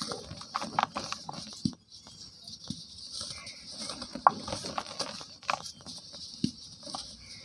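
Lumps of dried cement crumbling in bare hands: irregular snappy crunches and crackles, with a steady hiss of fine powder sifting through the fingers into the basin. There is a brief lull about two seconds in.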